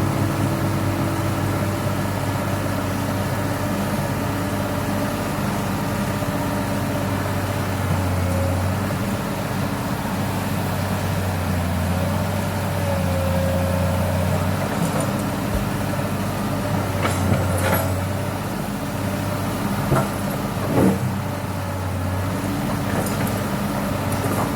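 Excavator's diesel engine running with a steady low drone that swells and eases, with a few short knocks near the end.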